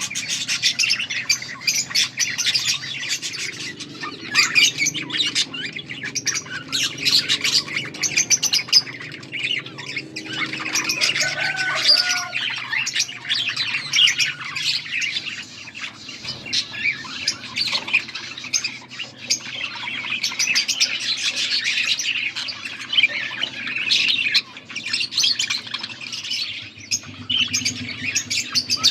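Budgerigars chirping and warbling continuously, a dense chatter of short chirps and squawks.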